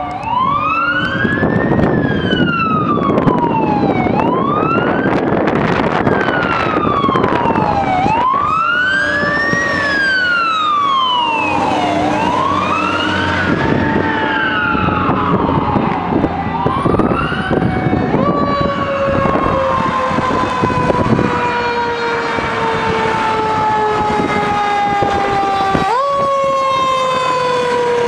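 Fire truck sirens on an emergency response: a wail rising and falling about every four seconds, then a long tone that slowly falls in pitch and is pushed back up near the end, over the trucks' engine and road noise.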